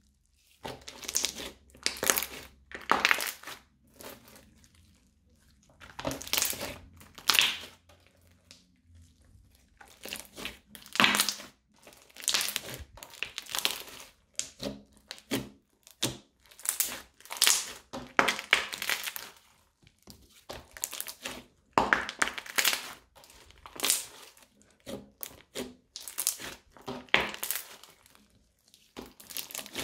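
Crunchy slime being squeezed, stretched and folded by hand, giving a crackling crunch with each squeeze. The crunches come in short bursts every second or so, with a few brief pauses.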